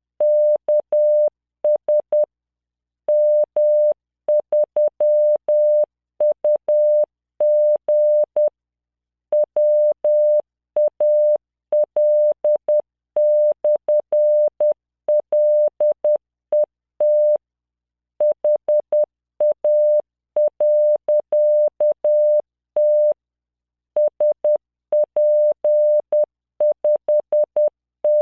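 Computer-generated Morse code practice tone: a steady 600 Hz beep keyed on and off in dots and dashes at 10 words per minute, with longer pauses between words.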